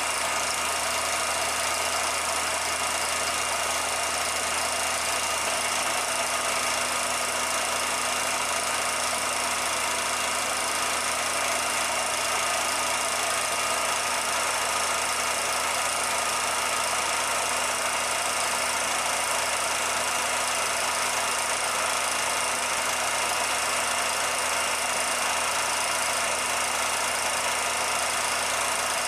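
A steady machine running: a constant hum and hiss with a few steady tones, unchanging throughout.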